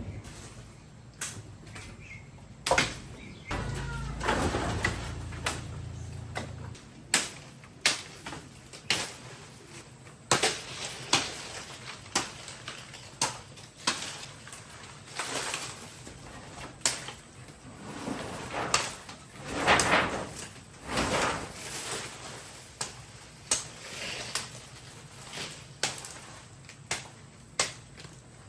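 A long run of sharp knocks at irregular spacing, roughly one a second, with short rougher scraping stretches between them, typical of hand work with tools on a house under repair.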